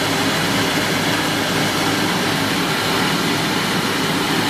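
Small rice milling machine running steadily: a constant hum from its motor and milling rotor, under a dense even noise, as milled rice streams out of its outlet chute.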